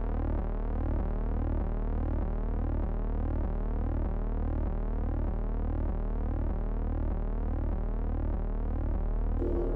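Synthesized electronic tones: a steady low drone under an evenly repeating pattern of pitch glides, as in the opening of a background music track. New musical sounds join near the end.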